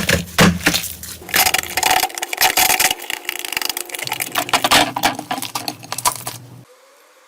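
Slime being worked by hand, giving dense crackling and popping clicks. It cuts off suddenly about six and a half seconds in.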